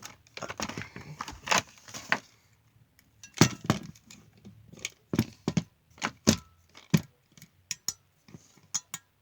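Toy packaging and a plastic toy truck being handled during an unboxing: a run of sharp clicks, taps and knocks, with some crinkling and rustling in the first couple of seconds.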